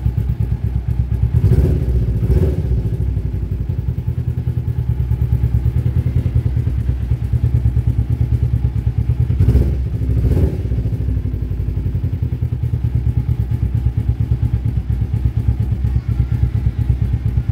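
Carbureted Kawasaki Ninja 250's 249 cc parallel-twin engine idling steadily while it warms up, just after starting. It briefly gets louder twice, about two and ten seconds in.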